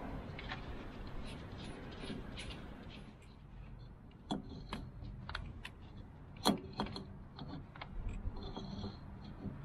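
Scattered light clicks and clinks of gloved hands working the fuel filter canister and its mount on the tractor's engine. The sharpest click comes about six and a half seconds in.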